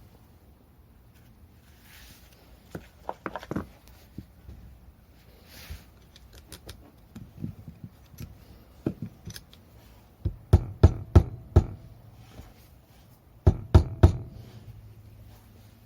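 Scattered clicks and knocks from objects being handled, with a group of four sharp knocks about ten and a half seconds in and three more about three seconds later.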